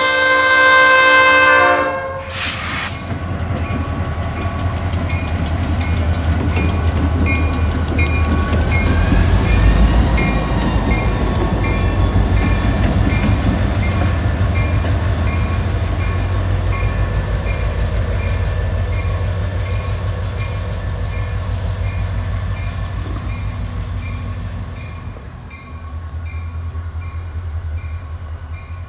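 Diesel locomotives, an EMD SD40-2 and a GP15-1 running light, sound their horn, which cuts off about two seconds in. The engines then rumble past with a bell dinging steadily and a high whine that rises about eight seconds in and drops back near the end.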